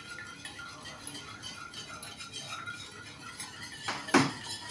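Utensil stirring a wet mixture of egg, oil and panela sugar in a glass bowl, with faint scraping and light clinks against the bowl, and one sharper, louder knock about four seconds in.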